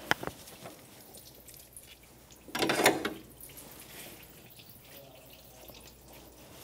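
Engine coolant dripping and trickling out of the open temperature-sensor port into a catch pan, with a sharp click at the start and a short, louder noisy sound about two and a half seconds in.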